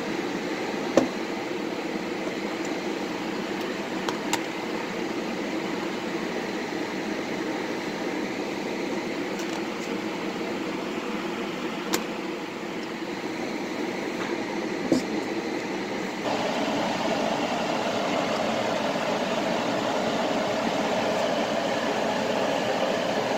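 Steady whirring noise, like a fan running, with a few single sharp clicks. It gets louder about 16 seconds in.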